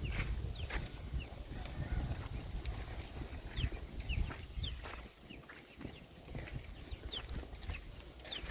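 Birds chirping now and then: short, high, falling calls scattered over a steady low rumble of wind on the microphone.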